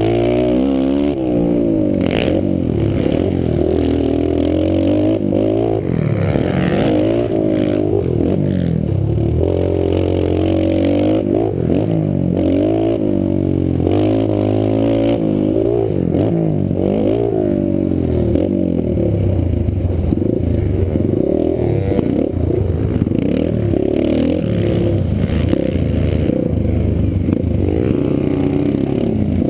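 Pit bike's small single-cylinder four-stroke engine riding a dirt track, revving up and easing off again and again through corners and jumps.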